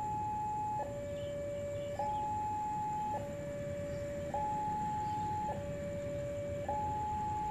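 Railway level-crossing warning alarm sounding as a train approaches. Its electronic tone alternates steadily between a higher and a lower note, each held a little over a second, over a low even rumble.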